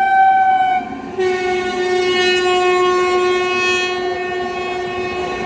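WAP7 electric locomotive's horn sounding as the train passes at speed: a high note that stops about a second in, then, after a brief break, a longer, deeper blast. The rumble and clatter of the passing coaches runs underneath.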